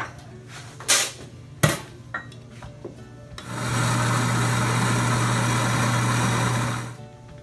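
Commercial coffee grinder grinding a batch of beans: a steady motor hum with a gritty grinding noise, starting about three seconds in, running for about three and a half seconds and cutting off near the end. Before it, a few sharp knocks and clicks as the grinder is set up.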